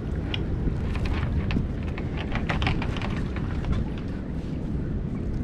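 Wind rumbling on the microphone over water lapping at a small boat, with a scatter of light splashes and drips from a wet cast net in the first three seconds.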